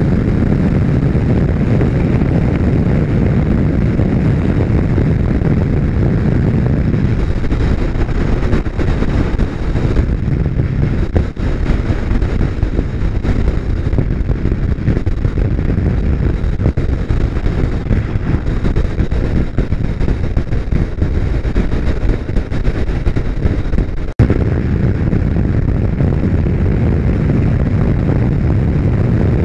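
WMoto Longjia XDV 250i running at highway speed, its engine mixed with heavy wind rush on the microphone. The low rumble eases about seven seconds in as the bike slows, then builds again after a brief break in the sound about 24 seconds in as it speeds back up.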